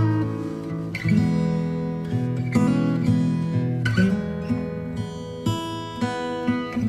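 Background music: an acoustic guitar playing plucked and strummed chords.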